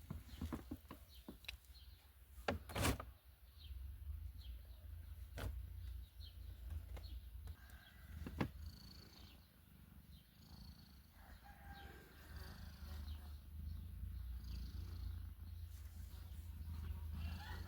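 A domestic cat purring, a low steady rumble, with a few sharp clicks and faint short high-pitched squeaks over it.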